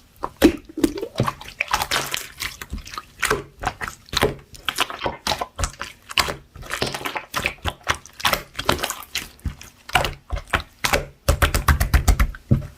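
Chewy slime being squished and pressed by hand: a dense, irregular run of wet, sticky clicks and pops, with a quick burst of louder pops near the end.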